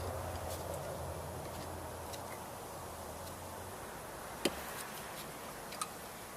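Light clicks and taps of small metal parts and hand tools being handled during mower carburetor work, with one sharper click about four and a half seconds in and another a little later. A low hum underneath stops a little over halfway through.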